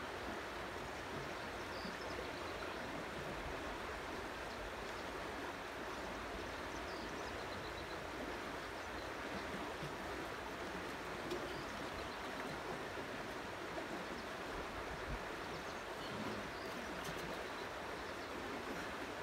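Steady rushing outdoor background noise with a few faint high chirps.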